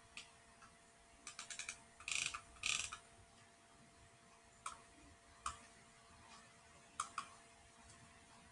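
Computer mouse, faint: a quick run of scroll-wheel ticks, then two denser bursts of ticking between about one and three seconds in. Single button clicks follow around five seconds, and a double click comes about seven seconds in.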